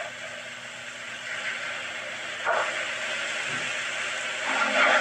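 Batter frying in hot oil in a honeycomb-celled pan, a steady sizzling hiss, with short louder bursts about two and a half seconds in and again near the end.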